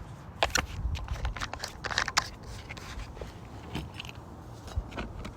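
Scattered sharp clicks and short scrapes of handling and movement on an asphalt-shingle roof, busiest about two seconds in, over a steady low rumble.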